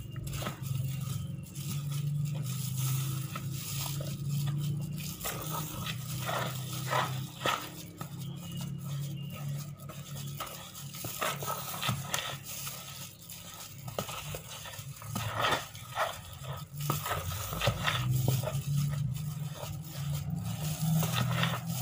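Red spatula stirring a dry flour mix in a metal basin: irregular scraping, crunching strokes against the flour and the basin. A steady low hum runs underneath.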